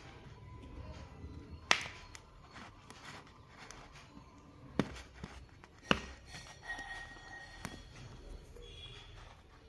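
Skycut vinyl cutting plotter working on flex: a steady low motor hum with three sharp clicks from the cutting head and carriage, and a brief thin whine about seven seconds in.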